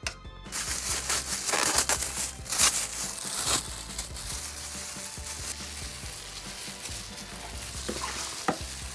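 Thick flour paste ladled from a steel bowl onto cut napa cabbage in a plastic basin, then gloved hands tossing and mixing the seasoned cabbage: a rustling, stirring noise, loudest in the first few seconds and steadier after, with one sharp click near the end.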